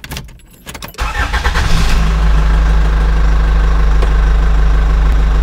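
Engine sound of a large radio-controlled truck starting: about a second of weak cranking, then it catches, revs up briefly and settles into a steady idle.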